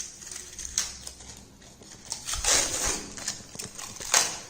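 Plastic laptop hard-disk caddy being handled: light clicks and knocks, a short scraping rustle midway and a sharp plastic click near the end.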